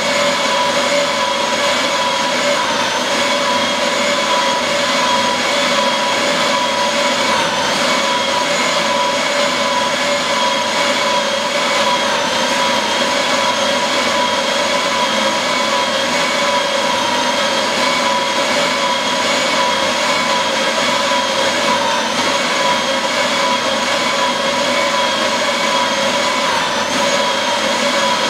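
Ceiling-mounted paper shredder running continuously as it chews a strip of paper fed up from a roll: a steady mechanical whine over a constant rushing noise.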